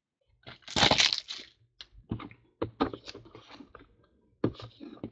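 A foil card-pack wrapper crinkling loudly about a second in, followed by a run of clicks and scuffs as cardboard card boxes are handled and pulled from a cardboard shipping case.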